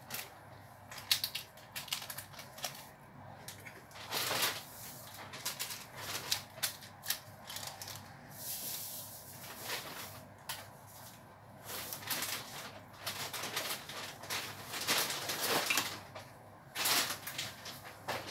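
Metal ladle scraping and clinking against a stainless steel cooking pot while vegetables are stirred into the soup, in irregular bursts of scrapes and clicks, loudest about four seconds in and near the end.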